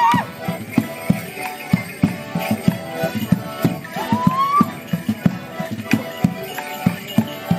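A melodeon band plays a Border morris tune, with sharp knocks keeping the beat throughout from the dancers' sticks and feet. About four seconds in there is a single rising whoop.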